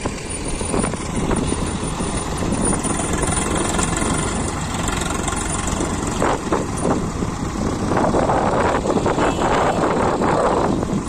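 Diesel tractor engines running steadily while a loader bucket tips earth into a tractor trolley, the pouring soil adding a rushing hiss over the engines in the second half.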